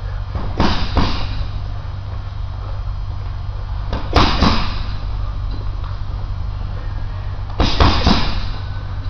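Gloved punches landing on a hanging heavy bag: three quick combinations of two or three thudding hits each, a few seconds apart.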